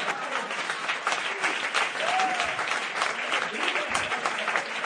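Crowd applauding steadily, many hands clapping in a dense, even patter. A short rising-and-falling tone stands out about two seconds in.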